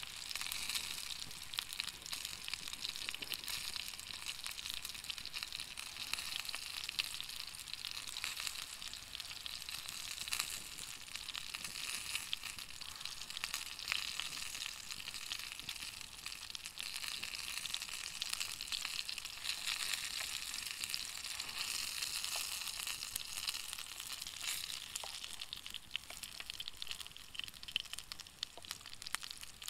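Food frying in a pan: a steady sizzle dense with fine crackling spits.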